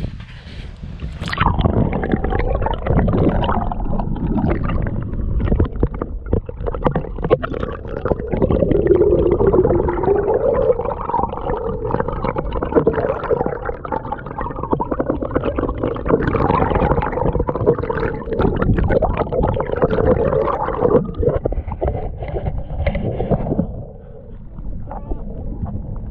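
Boat motor running with water noise, its pitch rising about a third of the way in and then holding.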